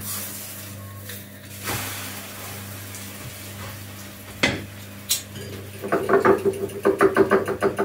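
A fork beating eggs in a bowl: a fast, even run of clinks against the bowl, several strokes a second with a ringing tone, starting about six seconds in. Before it, a few scattered knocks of a utensil in a frying pan over a steady low hum.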